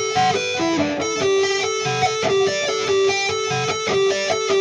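Electric Telecaster guitar played through an amp: a quick picked riff that keeps returning to one repeated note while other notes move around it.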